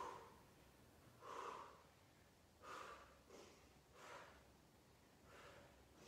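Faint breathing of a person working out: about six soft, short breaths, roughly one a second.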